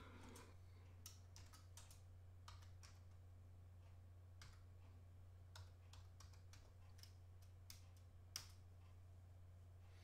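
Faint computer keyboard typing, irregular keystrokes spread over several seconds with one louder click near the end, over a steady low hum.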